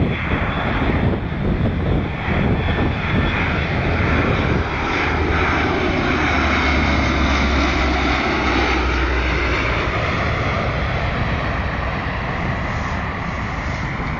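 Lockheed C-130 Hercules's four turboprop engines droning as the transport lands and passes low overhead. A deep hum is strongest about midway through, then eases slightly as the aircraft moves off down the runway.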